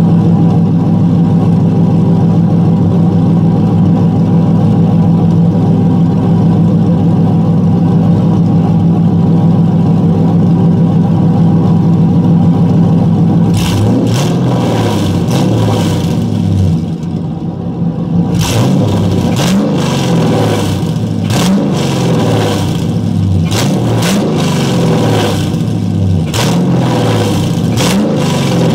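LS1 V8 in an FD RX-7, running through a half-built exhaust that ends under the car, idling steadily not long after a cold start. About 14 seconds in it is revved over and over in short throttle blips, each rising and falling in pitch, with sharp crackles in between.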